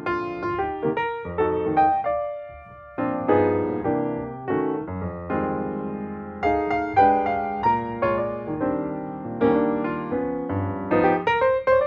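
Solo piano music, chords and melody notes struck and left to ring.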